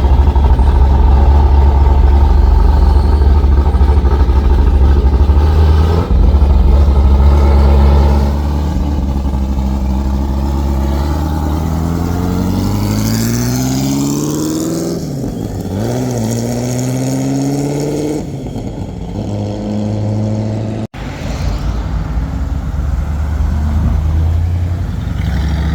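Loud car engine: a deep steady rumble for about eight seconds, then revs climbing, dropping and settling into a steady run, with a brief cut-out about two-thirds through.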